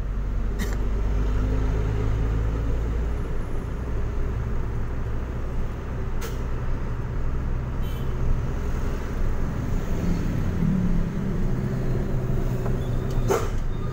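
Truck engine running while driving in town traffic, heard from inside the cab: a steady low hum whose note shifts about ten seconds in, with a few short clicks.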